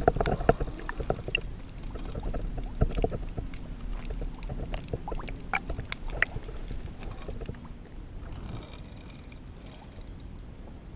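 Muffled water sounds heard through a camera held underwater beside a kayak: sloshing with many small clicks and knocks against the housing, busiest in the first few seconds. About eight seconds in, a brief hiss as the camera comes back out of the water.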